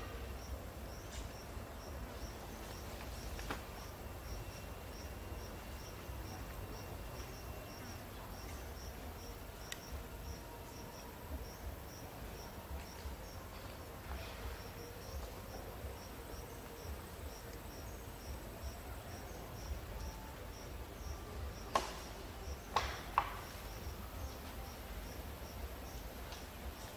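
Insect chirping in short, evenly spaced high pulses, about three a second, over a low rumble. Three sharp clicks come about three-quarters of the way through and are the loudest sounds.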